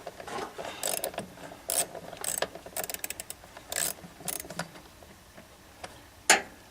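Socket ratchet clicking in irregular runs as the 7 mm screws holding a 1992 Chevy Astro's blower motor are backed out. There is a sharp single click near the end.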